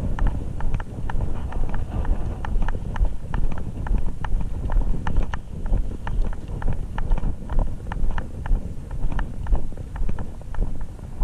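Quick, regular footsteps of a person on the move, about two to three a second, each with a low thud.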